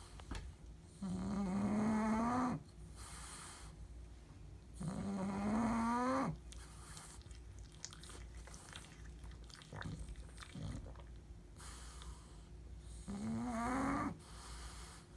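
Bulldog snoring: three loud, drawn-out snores, each about a second and a half long and rising slightly in pitch, with quieter breathing between them.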